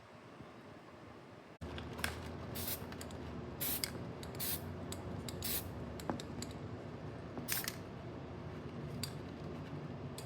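Metal being ground in short passes to make an aftermarket motorcycle exhaust fit: a steady low hum with a series of brief, sharp hissing strokes, starting suddenly about a second and a half in.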